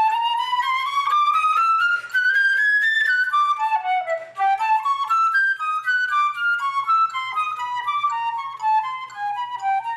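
Solo concert flute playing a fast etude passage of short, quick notes: a smooth run climbing steadily for about three seconds to a high peak, then rapid figures that work their way back down in repeating, stepwise groups.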